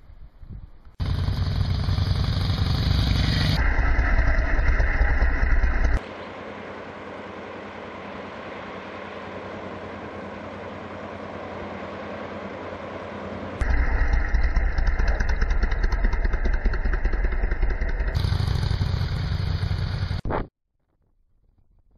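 Motorcycle riding noise, engine and wind buffeting the microphone, in several abrupt cuts. In the middle a stretch of steady rushing water from a whitewater cascade replaces it. The sound cuts off suddenly near the end.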